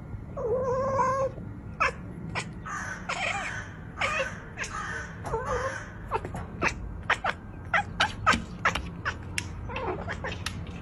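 Domestic tabby cat at a window making short chirping, meow-like calls, then a quick run of sharp clicks in the second half, the chattering of a cat fixed on something outside.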